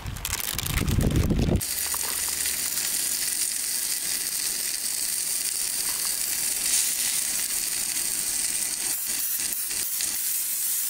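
Walleye fillets frying in a pan, a steady sizzle. A loud low rumble covers the first second and a half.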